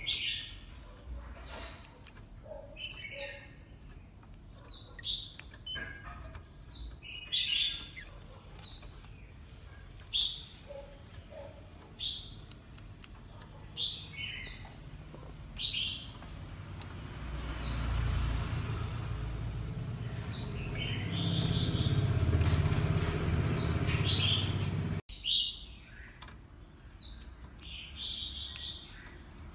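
Oriental magpie-robin calling: short, falling whistled notes repeated every second or two. In the second half a low rumbling noise swells up, becomes the loudest sound, and cuts off suddenly a few seconds before the end.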